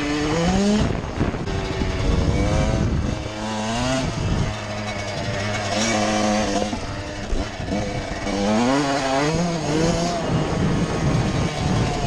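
1999 Suzuki RM 125 single-cylinder two-stroke dirt bike engine, ridden with the revs climbing and dropping again and again, between steadier stretches.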